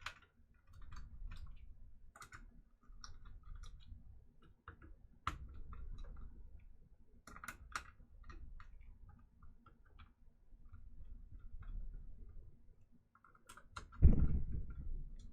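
Small irregular clicks and ticks of a screwdriver turning the spring-loaded heatsink screws on a graphics card, over a low handling rumble. About 14 seconds in there is one loud thump that dies away over about a second.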